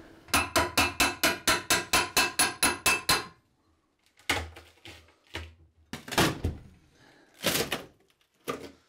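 Claw hammer tapping a steel pry tool into the seam of a glued plywood floor panel: about fifteen quick strikes at roughly five a second. After a short pause come a few separate knocks and cracks as the panel is levered up and torn free of its adhesive.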